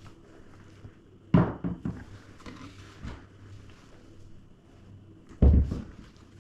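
Heavy crossbow being handled and moved about, giving hard knocks and thumps on a hard surface: two loud ones about a second and a half in and near the end, with a few smaller knocks between, over a faint steady hum.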